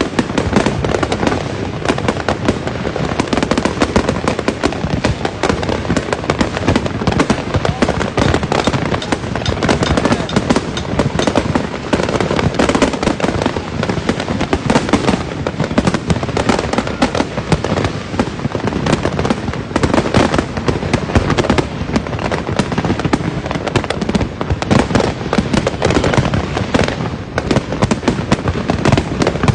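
Fireworks going off in a dense, continuous barrage: rapid overlapping pops, crackles and bangs with no pause.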